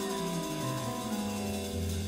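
Live jazz trio playing: electric guitar notes over a moving bass line and a drum kit.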